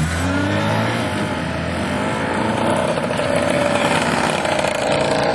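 Sport motorcycle pulling away and riding past close by. The engine rises in pitch as it accelerates, then runs on steadily and loudly as it passes.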